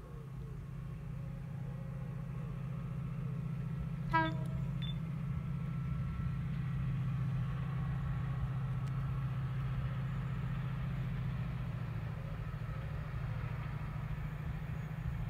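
Pair of Class 68 diesel locomotives approaching from afar, a low engine drone slowly growing louder. One short horn toot sounds about four seconds in.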